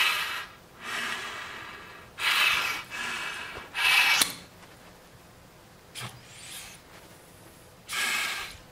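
Breaths blown and drawn through a dry snorkel's tube and mouthpiece, a string of short, airy gusts, as the snorkel is tilted over and turned upside down to test its dry-top valve, which shuts off the top of the tube when it is inverted. A light click sounds about six seconds in.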